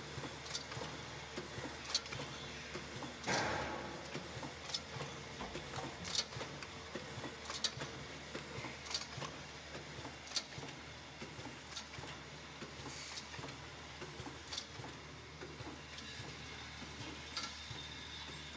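Automatic two-nozzle piston-pump bottle filling and capping machine running: a steady low hum with sharp mechanical clicks and ticks about once a second, and one short louder hiss about three seconds in.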